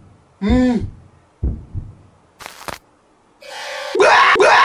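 Heartbeat sound effect: a slow double thump, with a short cry that rises and falls before it, then a sudden, very loud, harsh jumpscare blast with a pulsing beat about four seconds in. Near the start of the blast, a mouthful of water is sprayed out of a mouth in surprise.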